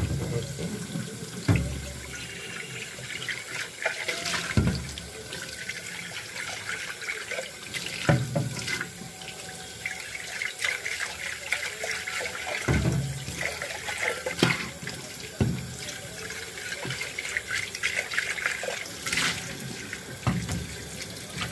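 Tap water running into and splashing in an aluminium pressure cooker pot in a stainless steel sink, with about eight sharp knocks scattered through it as the metal pot is moved about and bumps the sink.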